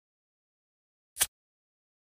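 Silence broken once, a little over a second in, by a single short, sharp pop, like one crackle from a burning wood fire.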